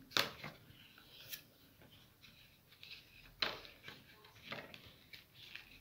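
Rolled newspaper weaving tubes rustling and scraping against one another as they are twined round the stakes of a paper basket base: a few short, soft scratches, the clearest about three and a half seconds in.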